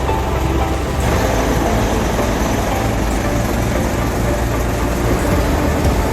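Heavy diesel truck engine idling steadily, with a deep low rumble.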